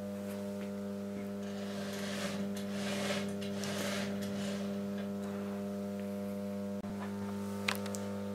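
A 100 amp variable voltage transformer, four variacs in parallel with balancing chokes, giving a steady mains hum under power. In the middle there is a scraping rustle as the control knob is turned down and the brushes slide over the windings. A short click comes near the end.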